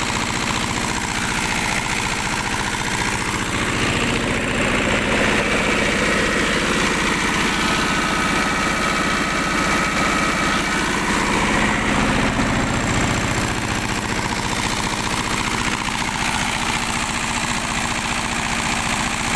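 Two-cylinder diesel engine running steadily as a generator set, with an even, continuous firing beat.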